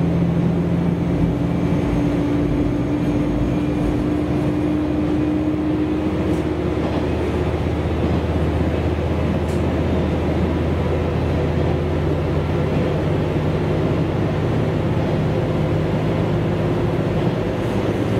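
Diesel railcar running at steady speed, heard from inside the passenger cabin: a continuous engine drone and wheel-on-rail rumble, with a higher whine that fades out about seven seconds in.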